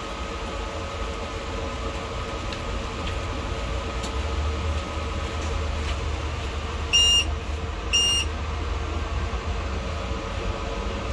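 Two short, high electronic beeps about a second apart, over a steady low rumble and a constant hum.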